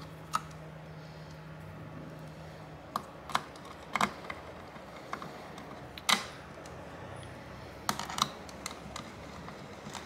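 Small screws being driven back into a graphics card's brushed-metal backplate with a hand screwdriver: scattered light clicks and taps of the tool and screws, the sharpest about six seconds in.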